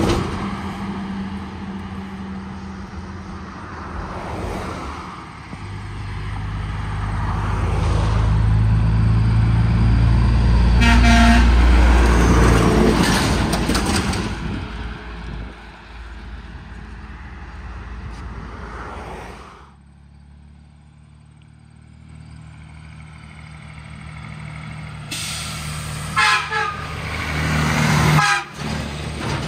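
Semi trucks driving past one after another, their engine and tyre noise swelling and fading with each pass; the loudest pass is about halfway through. Short horn toots sound around the middle and again near the end.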